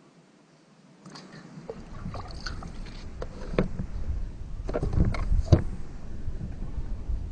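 Wind buffeting the microphone, a gusty low rumble that sets in about two seconds in, with scattered clicks and knocks of handling, the sharpest two about five seconds in.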